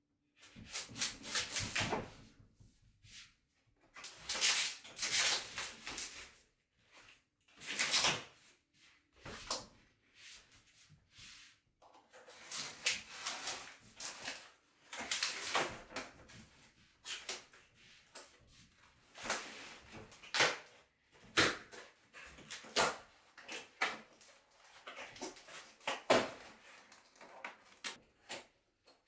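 Box cutter slicing along the edges of a flat cardboard box, then the cardboard being torn and folded back: irregular scraping and ripping strokes, each a second or two long.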